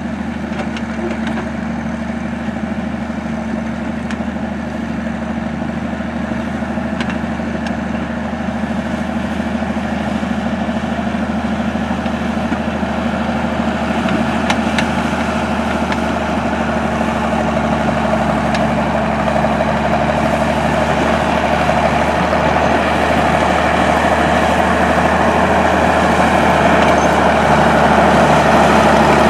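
Old Caterpillar No. 12 motor grader's diesel engine running steadily as the grader works along a dirt road with its blade down, growing louder as it comes closer.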